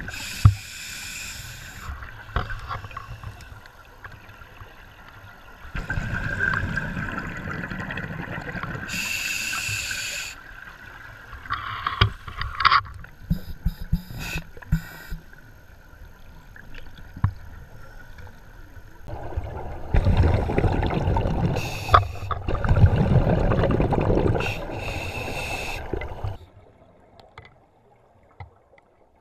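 Scuba regulator breathing heard underwater: hissing inhalations alternating with long stretches of bubbling, rumbling exhalation, with a quieter stretch near the end.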